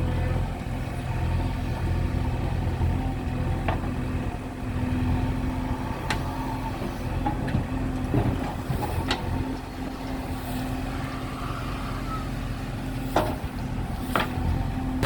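Heavy diesel engine of earth-moving machinery running steadily, with a handful of short sharp knocks or clanks at irregular intervals.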